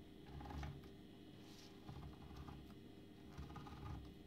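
Faint handling sounds: soft low knocks and a few light taps and clicks, with no clear source.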